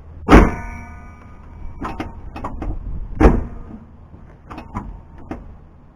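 The hood of a 1999 Dodge Ram 1500 pickup slammed shut twice, about three seconds apart, to test a newly replaced hood latch. The first slam leaves a brief metallic ring, and lighter clicks and knocks come between and after the slams.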